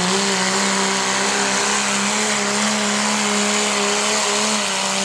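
Diesel pickup truck engine running at high, sustained revs under full load while dragging a pulling sled. Its pitch holds nearly steady and dips slightly near the end.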